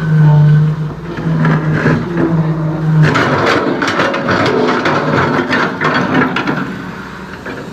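A heavy machine's engine runs with a loud steady hum. About three seconds in, dense cracking and scraping takes over as the bituminous road surface is ripped up.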